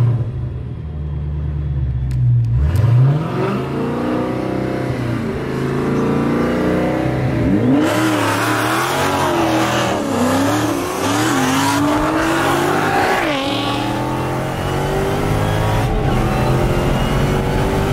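A performance car's engine accelerating hard at full throttle. Its pitch climbs and drops back several times as it shifts up through the gears.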